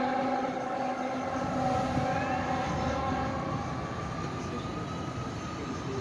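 Heavy rescue fire truck's air horn held in a long, chord-like blast through the first half, then a siren tone rising slowly in the second half, heard from a distance over low city rumble.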